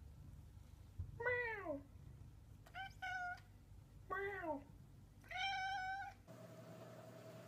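Domestic tuxedo cat meowing four times, about a second apart. The first and third meows fall in pitch.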